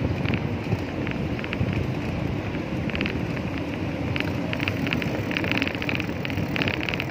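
Wind and rolling rumble on the microphone of a bicycle riding along asphalt, with short bursts of rapid ticking every second or so.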